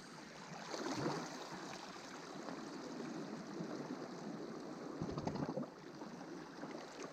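Sea water washing and lapping at the shore, swelling twice, with some wind.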